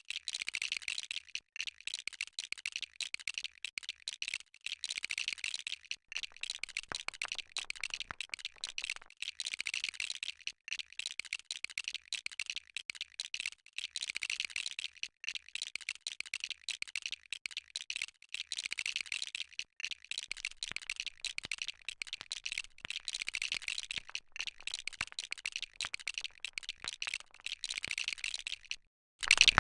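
Small plastic LEGO pieces clicking and rattling in a dense, rapid run of light clicks as they are handled and pressed together.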